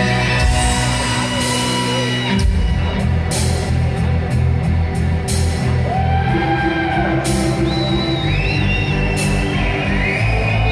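Live heavy metal from a rock band playing with a symphony orchestra: distorted electric guitar and strings over drums, with cymbal crashes. There is a chord change about two seconds in, and a wavering high melody comes in during the second half.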